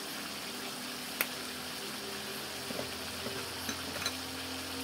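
Chicken pieces sizzling in hot oil and their own juices in a wok, a steady hiss. There is one sharp click about a second in and a few faint ticks near the end.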